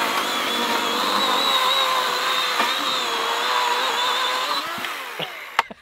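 DeWalt cordless electric chainsaw cutting through a board, its motor giving a steady whine that fades away about five seconds in as the cut ends. A few sharp clicks follow just before the end.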